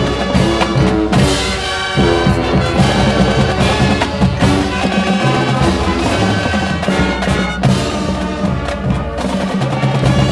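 High school marching band playing its field show: brass sounding sustained chords over drums and front-line percussion, with sharp drum hits throughout.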